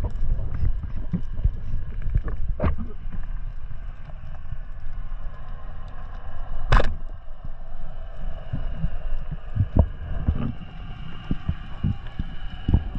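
Muffled underwater sound picked up by a camera in a waterproof housing: a steady murky wash of water noise with irregular low knocks and bumps against the housing. One sharp click about seven seconds in is the loudest event.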